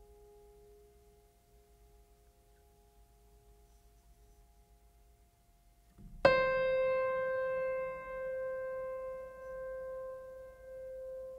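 Ambient music: soft held tones fade away, then about six seconds in a single deep bell-like note is struck and rings on, wavering in loudness as it sustains.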